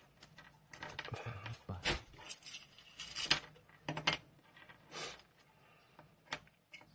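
Irregular clicks and light metallic clinks of a small solenoid valve's parts being handled during disassembly, as the coil assembly is slid off and its metal frame is set down.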